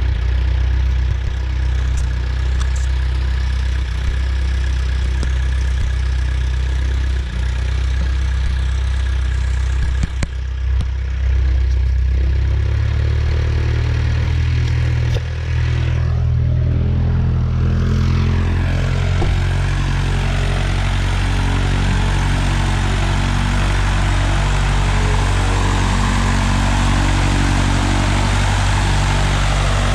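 Light aircraft's freshly overhauled piston engine and propeller running after starting on its electronic magneto (EMAG) alone. It speeds up about twelve seconds in and again a few seconds later, then runs steadily at the higher speed.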